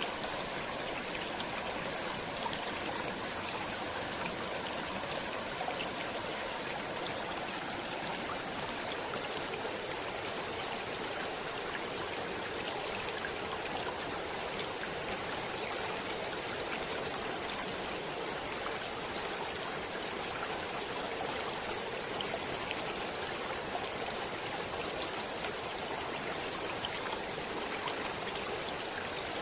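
Stream water flowing steadily: an even rush of running water with scattered small splashes and trickles.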